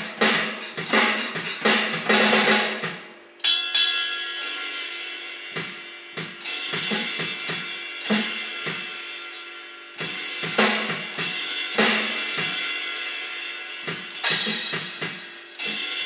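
Sampled acoustic drums (snare, toms and kick from drum software) played through small, weak speakers as homemade electronic drum pads are struck with sticks. A fast fill is followed about three seconds in by a crash that rings on under further, sparser hits.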